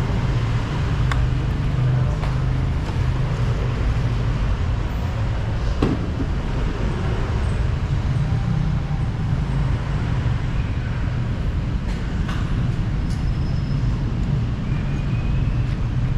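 Yamaha Gravis scooter engine running at a steady, even low hum, with road and vehicle noise around it. A few faint clicks come through on top.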